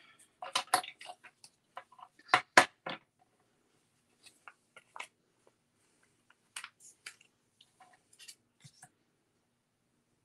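Hands handling cardstock and small paper pieces on a cutting mat: scattered rustles, taps and small clicks, louder in the first three seconds, then fainter and sparser.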